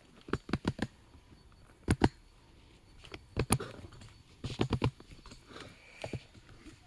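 Metal tools and engine parts being handled on a bench: irregular clusters of sharp clicks and knocks, the loudest a pair about two seconds in, as a piston ring compressor is fought with.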